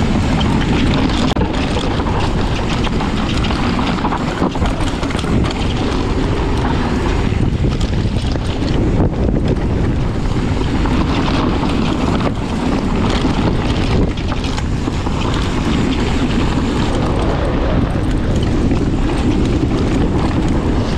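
Wind rushing over an action camera's microphone during a fast mountain-bike descent, with the tyres and bike rattling over rough trail ground.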